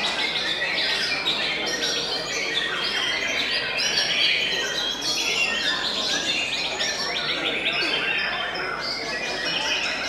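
Many caged white-rumped shamas (murai batu) singing over one another: a dense, continuous tangle of quick whistled and trilled phrases.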